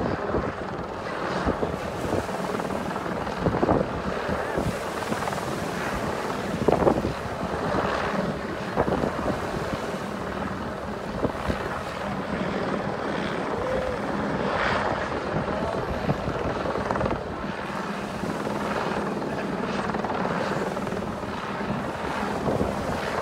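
Helicopter flying overhead, a steady droning rotor and engine sound.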